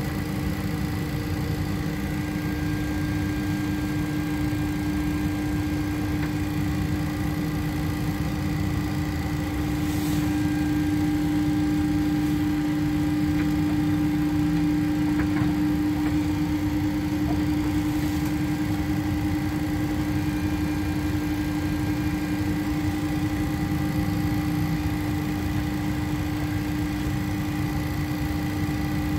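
Steady drone inside a Boeing 737 cockpit during pushback: a low rumble with one strong, even hum on top, a little louder around the middle.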